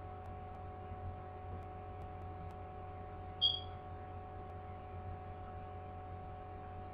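Quiet room tone with a steady electrical hum. A short, high-pitched tone sounds once about halfway through.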